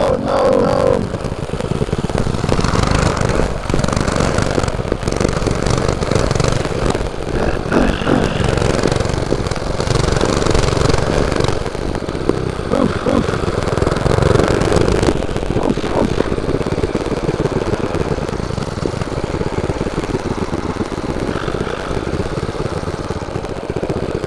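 Mini bike's Predator 212 single-cylinder four-stroke engine running under load as the bike is ridden off-road, its pitch rising and falling with the throttle.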